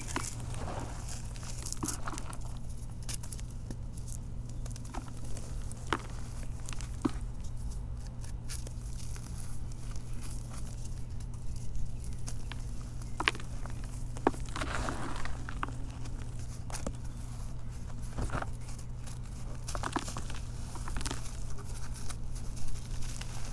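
Hands crumbling and rubbing dry, chalky reformed blocks of grit and powder: gritty crunching with loose grains pattering down and scattered sharp snaps as pieces break. A steady low hum runs underneath.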